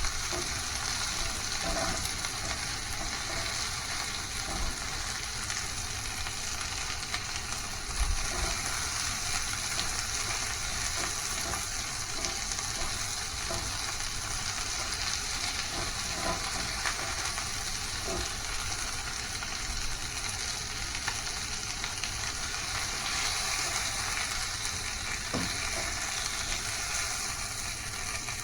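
Food frying in a pan: a steady sizzle with a few light clicks and pops scattered through.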